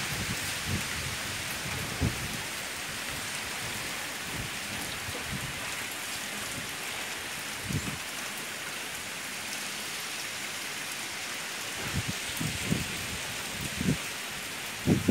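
Steady hiss of heavy, wind-driven rain from a hurricane, with a few short low thumps about two seconds in, around the middle and several near the end.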